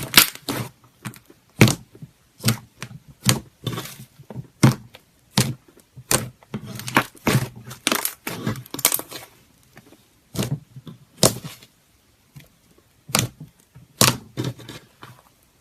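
Slime being squeezed and pressed by hand, giving irregular sharp pops and crackles that thin out in the second half and stop shortly before the end.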